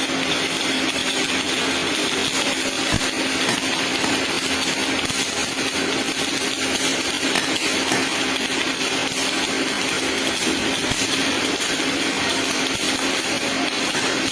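MIG (gas metal arc) welding arc, a steady crackling hiss that runs without a break, with a steady low hum underneath.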